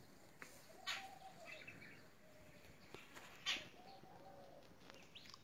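A bird calling twice, about two and a half seconds apart; each call is a sharp note followed by a short arching whistle.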